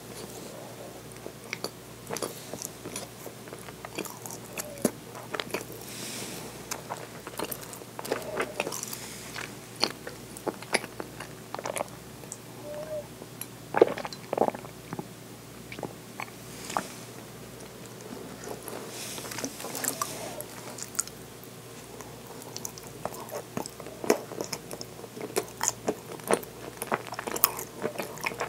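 Close-miked eating sounds: chewing with wet mouth clicks scattered through. About halfway through, a drink is sipped and there are a few louder gulps.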